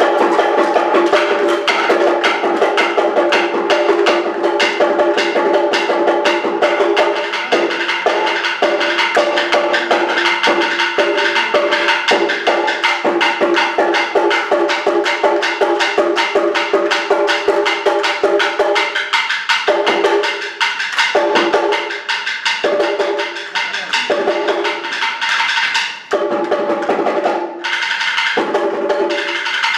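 Awa Odori dance music: a fast, driving percussion beat of drums and sharp clacking strokes under held melodic notes. In the last third the held notes break into shorter phrases with brief gaps.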